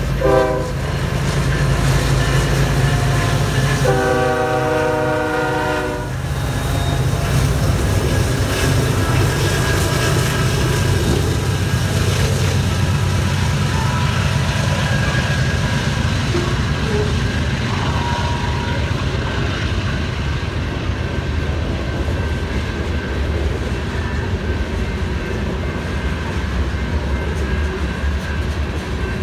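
Union Pacific freight train climbing a grade under heavy load. The lead diesel locomotives, an SD70ACe and an AC4400, sound the horn briefly at the start and again for about two seconds some four seconds in. Then comes a steady low rumble of the working engines and the loaded cars rolling past, with wheel clatter.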